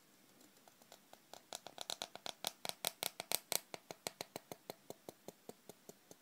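Reed pen (qalam) nib scratching across paper while drawing a slow curved stroke, a rapid run of small clicks at about six or seven a second. The clicks grow louder toward the middle and fade near the end.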